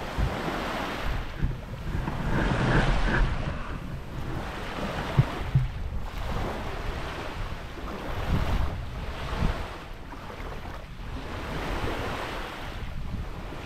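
Wind gusting on the microphone over small waves lapping on a sandy shore, with a single sharp knock about five seconds in.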